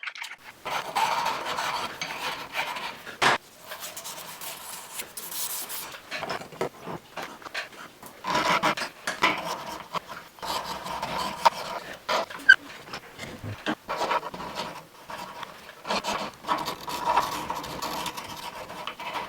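Hand-sanding strokes on a steel knife blade clamped in a vise: abrasive rubbing back and forth in three long spells, with a couple of sharp knocks.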